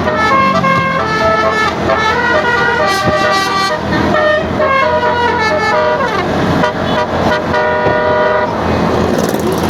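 Bus's multi-tone Basuri "telolet" horn playing a quick melody of short held notes, stopping about eight and a half seconds in.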